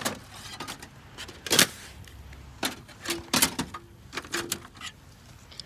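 Thin plastic pieces from a dismantled TV screen being pulled out and handled: irregular clicks, crinkles and clatters, with a few short squeaks in the second half.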